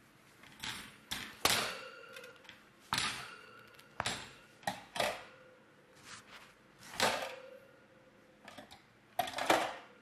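Metal loaf tin knocked and set down against a wire cooling rack while a baked sandwich loaf is turned out of it: a string of about ten sharp clanks at uneven intervals, several with a short metallic ring.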